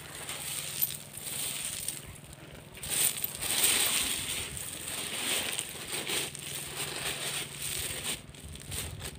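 Digging a pit in the ground: uneven scraping and crunching strokes as earth is scooped out, loudest a few seconds in.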